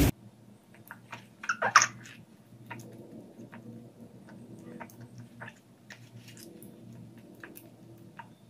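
Faint scattered clicks and crackles of a small kitten's paws shifting in granular cat litter, with a louder cluster about a second and a half in, over a faint steady hum.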